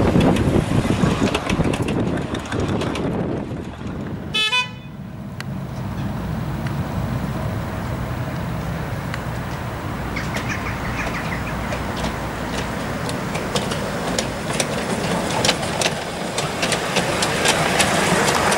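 Miniature railway train running on its track with a steady rumble, broken by a short horn toot about four and a half seconds in. Then a small locomotive and passenger cars roll closer, wheels clicking on the rails, growing louder near the end.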